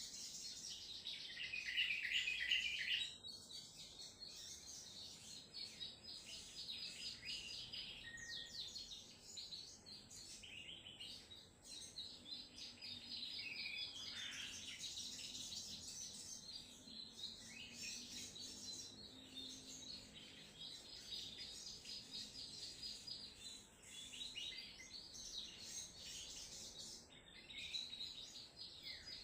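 A sogon (crimson sunbird) singing vigorously in rapid, high, chattering trills, the run-on 'trotol' song style, loudest about a second or two in.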